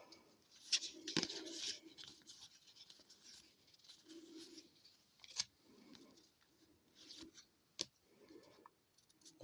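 Faint handling of hockey trading cards: scratchy sliding and rustling of card stock and pack wrapper, with a few sharp clicks and taps.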